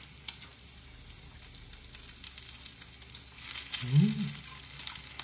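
Pork belly sizzling on a grill pan: a faint steady hiss with scattered crackling pops that grow busier in the second half. About four seconds in, a short hum from a person, rising in pitch.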